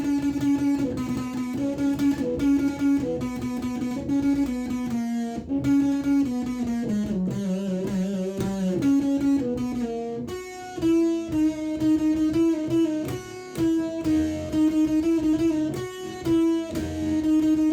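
Electric guitar through a Behringer Super Fuzz pedal, playing an improvised solo of long sustained notes that move stepwise, over a steady backing beat.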